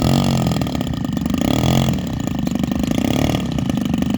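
Large RC model airplane's 70 cc gas engine running in flight, its pitch rising and falling repeatedly, about every second and a half.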